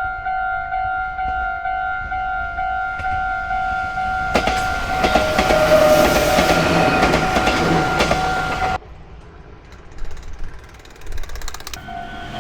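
Japanese railway level-crossing alarm sounding its electronic "kan-kan" bell, a steady two-tone ring pulsing about twice a second. About four seconds in a train passes and its rumble covers the bell, then the sound cuts off abruptly a little before nine seconds; after a quieter stretch with a few clicks, the crossing bell starts again near the end.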